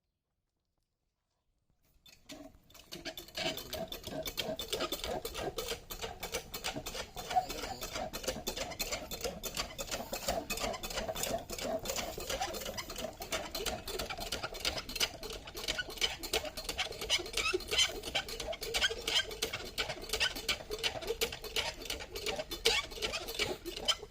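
Old sewing machine running fast, a rapid even clatter of needle strokes with a steady hum, starting about two seconds in after silence.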